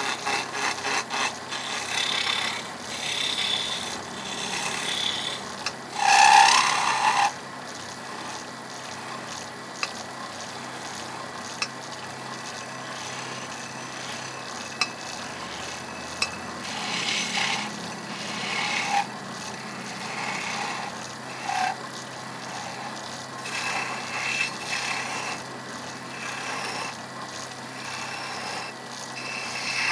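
Wood turning: a hand-held chisel scraping and shaving a small wooden skittle spinning on a lathe, in bursts of cutting noise. The loudest, harshest cut comes about six seconds in, and there is a quick run of ticks at the start.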